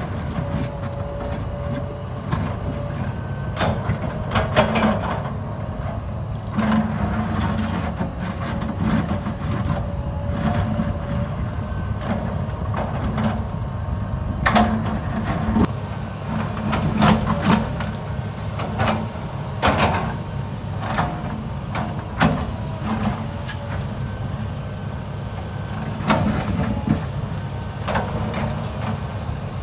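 Heavy construction machinery running steadily, with irregular metallic clanks and knocks over the engine drone.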